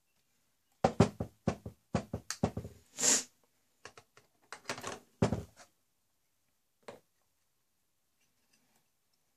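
A quick run of knocks and clicks as objects are handled and set down on a hard surface, with a short hissing rustle about three seconds in and a single last knock near seven seconds.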